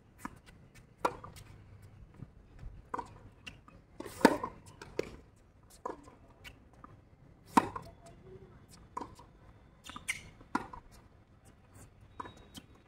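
Tennis rally on a hard court: a ball struck back and forth by rackets and bouncing, heard as sharp pops roughly every three seconds, with fainter bounces and clicks between.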